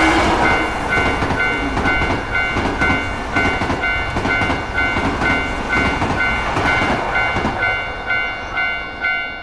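Railroad crossing warning bell dinging steadily, about twice a second, while a train passes over the crossing with rumbling, clattering wheels. The train noise dies away after about seven and a half seconds, leaving the bell ringing on.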